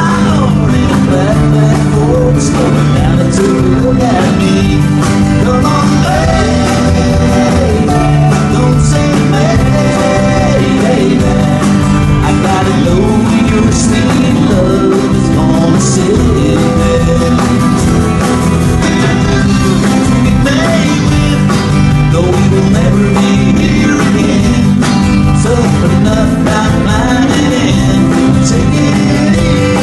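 Live band playing country rock: guitars, bass and drums, with singing.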